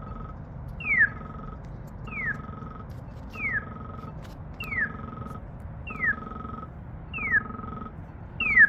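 Polara EN4 accessible pedestrian signal push button sounding its electronic chirp: a quick falling chirp, each followed by a short steady beep, repeating evenly about every second and a quarter, seven times.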